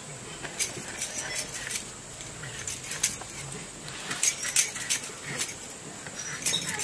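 Pumpkin being peeled and sliced by hand against an upright bonti blade: irregular crisp scrapes and clicks as the rind and flesh are drawn across the blade, with bangles clinking on the moving wrists.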